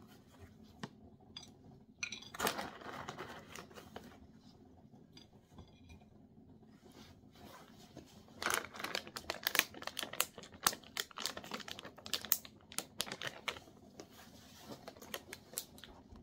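Plastic snack packet of roasted peanuts crinkling and rustling as it is tipped and shaken over a plate to pour the nuts out. Scattered crackles at first, then a dense flurry of crackling in the middle and later part.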